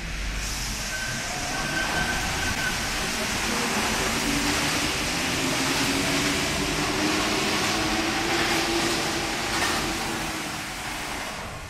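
A Paris Métro Line 1 driverless rubber-tyred train (MP 05 stock) passing close beneath, a loud steady rush with a faint whine that slowly rises in pitch. The sound falls away near the end as the train clears.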